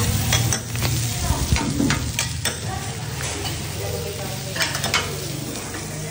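Salmon pieces and scallions sizzling on a teppanyaki flat-top griddle, with metal spatulas repeatedly clacking and scraping against the griddle plate.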